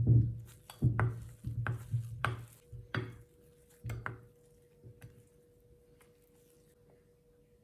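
Metal spoon stirring and scraping thick cookie dough in a glass bowl, clacking against the glass in irregular strokes about twice a second. The strokes are loudest over the first three seconds, then thin out to faint taps by about six seconds in.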